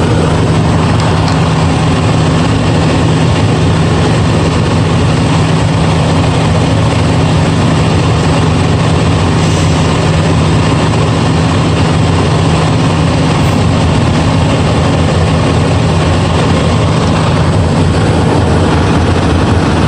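Heavy diesel engine running with a loud, steady, even drone that does not change in pitch or level.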